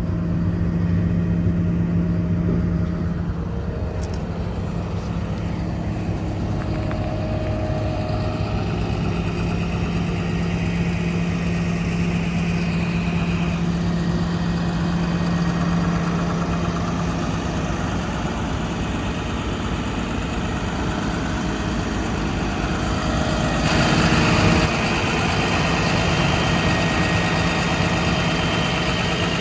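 Komatsu PC290LC-11 excavator's diesel engine running steadily, with a higher whine that comes and goes. About two-thirds of the way through there is a brief louder rush.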